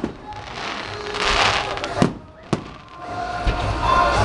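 Aerial fireworks shells bursting in the sky: sharp bangs at the start, twice about two seconds in and again at the end, with a rushing hiss between them.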